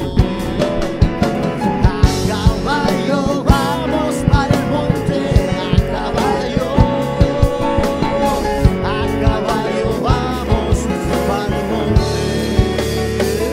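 Latin fusion band playing live: drum kit, congas, bass, keyboard and guitars, with a sung lead line.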